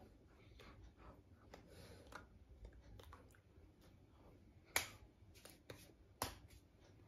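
Quiet sounds of gesturing hands: faint rustles and light ticks, with two sharp clicks about five and six seconds in.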